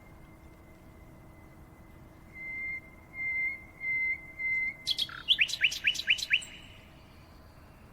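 A songbird singing: four even whistled notes, then a quicker, louder run of about six sharp chirps.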